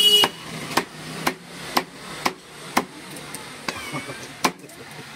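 Large fish knife chopping a mahi-mahi into steaks on a round wooden chopping block, a sharp knock on the wood about twice a second. A short vehicle horn toot right at the start.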